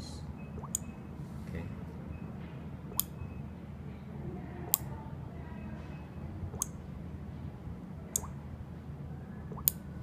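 Electromechanical relays on a four-channel relay board clicking six times, roughly every one and a half to two seconds, as they are switched on and off from a smartphone app, over a steady low hum.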